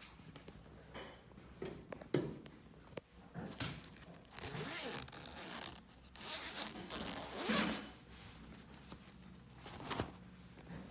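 Zipper on a fabric puppy stroller being pulled in two long strokes a little past the middle, with a few light knocks of handling around them.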